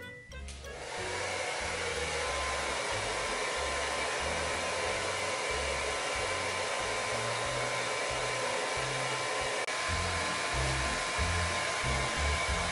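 A steady rushing, blowing noise with a thin steady whine in it, starting about a second in.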